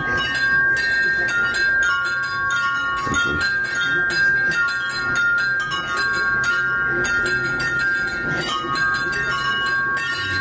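Metal tube wind chime ringing busily, its tubes striking each other many times a second so that several bright tones overlap and keep changing.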